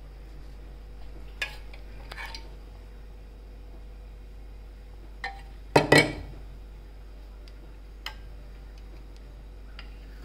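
Steel spoon clinking against stainless steel dishes: a few light taps, then a louder clatter of several quick clinks about six seconds in.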